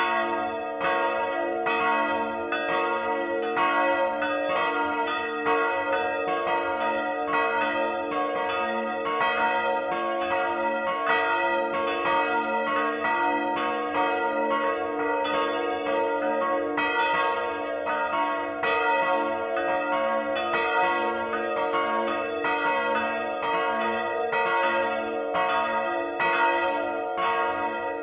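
Swinging church bells ringing close at hand in their belfry, their clappers striking about twice a second. The strikes overlap into a continuous, sustained ring.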